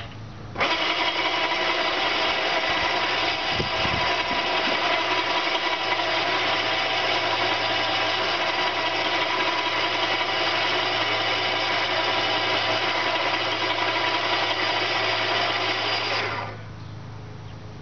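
A motor-driven rope winch running steadily while hauling its line. It switches on about half a second in and cuts off abruptly near the end.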